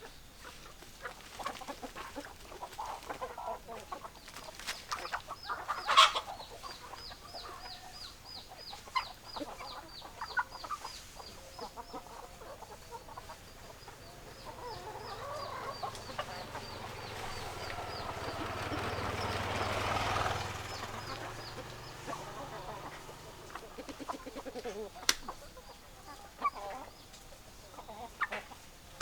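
Domestic hens clucking, with a sharp click about six seconds in and another near the end. A thin, high chirp repeats about three times a second through much of it. A rushing noise with a low hum swells to a peak about two-thirds of the way through, then drops away.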